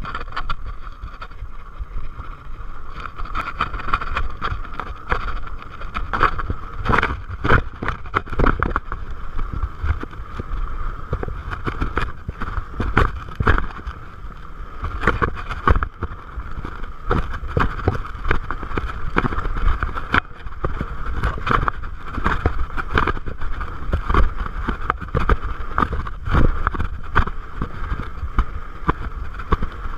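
Salsa Bucksaw full-suspension fatbike rolling fast down a dirt singletrack: a steady rush of wind on the microphone and tyre hum, broken by frequent sharp clatters as the bike rattles over rocks and bumps.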